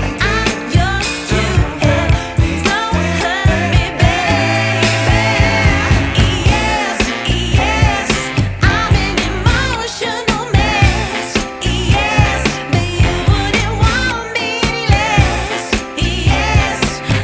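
Background music with singing over a steady beat and bass line.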